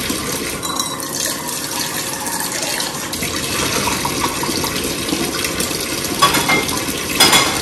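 Steak sizzling steadily in a frying pan on the stove, with a couple of short metallic clatters from the pan near the end.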